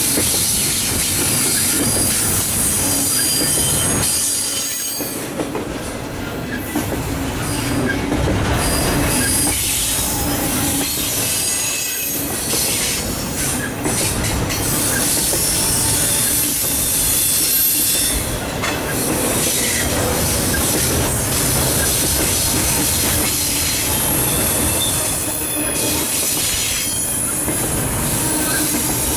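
Double-stack intermodal well cars rolling past at speed: a steady rumble of steel wheels on rail, with high-pitched wheel squeal and some clatter of wheels over rail joints.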